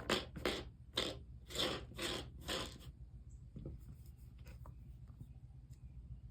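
About six quick scraping strokes, roughly two a second, then a few faint ticks over a steady low hum.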